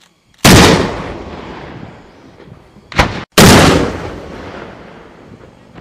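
M3 Carl Gustaf 84mm recoilless rifle firing: two very loud reports about three seconds apart, each trailing off over a second or more, with a short sharp crack just before the second.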